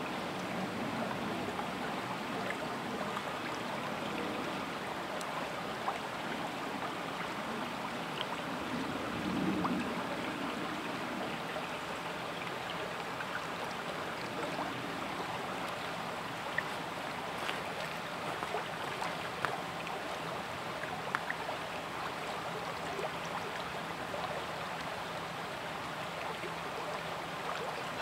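Shallow stream water flowing steadily over and around rocks, with a brief swell about nine seconds in and a few faint clicks.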